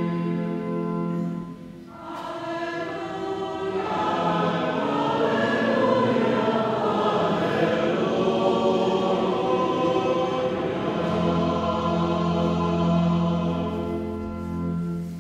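Church choir singing a slow, sustained liturgical chant in a large reverberant church. The singing dips briefly about two seconds in and fades out near the end.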